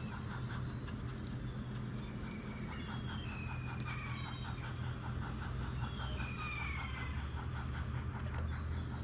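Birds chirping in short, falling calls over a steady low hum with a fast, even pulse.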